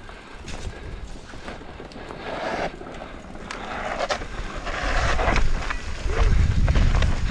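Mountain bike ridden fast down a dirt trail: tyres rolling over dirt and rock, with irregular knocks and rattles from the bike. Wind rumble on the microphone builds over the last few seconds as speed picks up.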